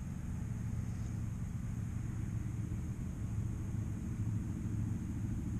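Steady low rumble of an idling vehicle engine, even and unbroken.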